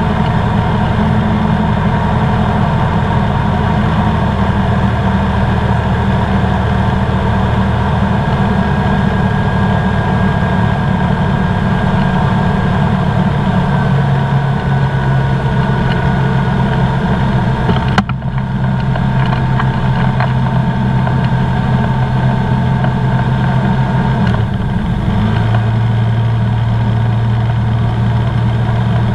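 Engine and propeller of a Comco Ikarus C42B ultralight, heard from inside the open-framed cockpit in flight: a loud, steady drone. The engine note changes twice, about halfway through and again near the end, with a brief sharp break in the sound in between.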